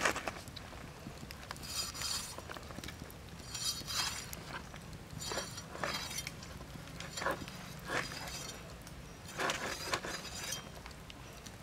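Cleaver slicing scoring cuts into the skin of a raw pork leg on a wooden cutting board: about eight separate crisp cutting strokes, a second or two apart.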